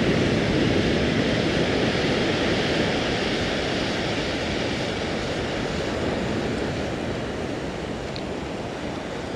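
Surf on a sandy beach: a steady rushing wash of waves that slowly eases off.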